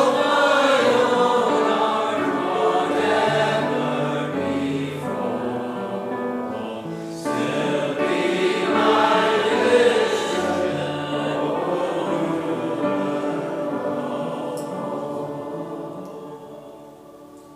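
A congregation singing a hymn together in phrases, with a short break between lines about seven seconds in. The singing dies away near the end.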